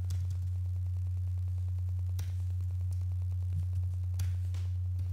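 A steady low electrical hum, with a few faint clicks about two and four seconds in.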